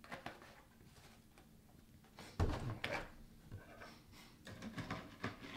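Small clicks as the plastic cap is twisted onto a gallon milk jug, then the full jug set down on a wooden table with a single heavy thump about two and a half seconds in. Light clinks and scrapes of a spoon in a cereal bowl follow.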